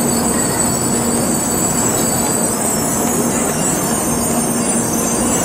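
N700-series Shinkansen train rolling slowly along the platform as it comes in to stop. It makes a steady rumble with a low hum and a faint high-pitched brake squeal.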